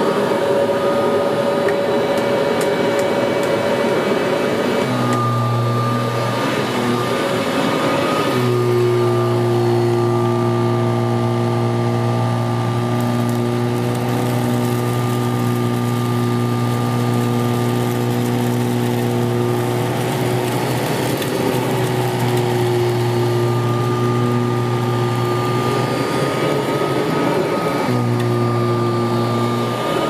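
A 1981 Kirby Heritage 1 upright vacuum cleaner running on carpet: a steady motor hum with a higher whine over it, its pitch stepping up and down a few times as it is pushed.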